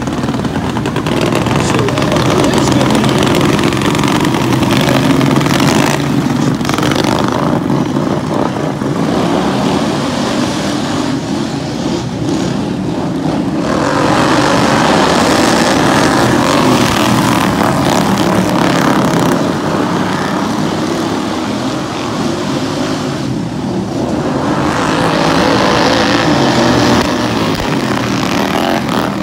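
Several racing lawn mowers' small engines running hard as the pack laps a dirt oval. The sound swells and fades as the mowers pass, loudest about halfway through and again near the end.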